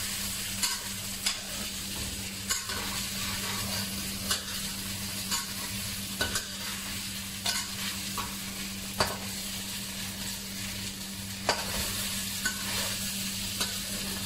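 Sausage slices, ham and garlic sizzling in a nonstick wok while a metal spatula stirs them, with a short scrape or click at each stroke against the pan. A steady low hum sits underneath.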